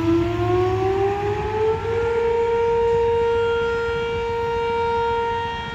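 Whelen Vortex outdoor warning siren starting up for its test: its tone winds up in pitch over about the first two seconds, then holds a steady tone.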